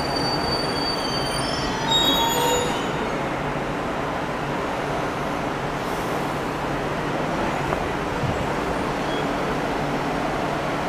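JR 211-series electric train pulling out of a station and rolling slowly past, a steady rolling noise of wheels on rail. Several short high wheel squeals sound in the first three seconds.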